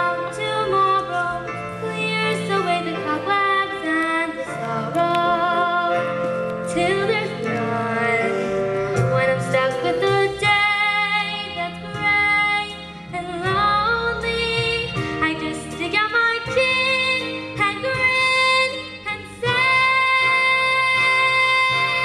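A girl singing a solo song over instrumental accompaniment, holding long notes.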